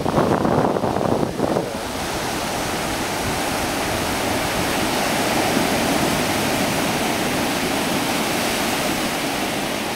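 Ocean surf washing up the beach, a steady hiss of water, with wind buffeting the microphone for the first couple of seconds.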